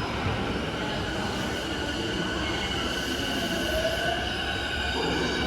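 Electric commuter train running along the station platform: a steady rumble with thin, high, squealing tones over it, and a short rising whine about four seconds in.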